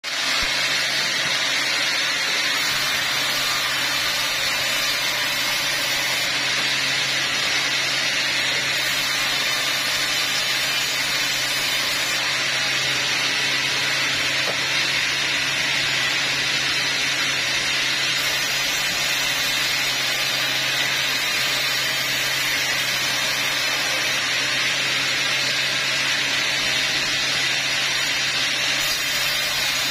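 Large vertical band saw in a sawmill running continuously while cutting teak logs: a steady hiss from the blade over a steady low hum from the machine.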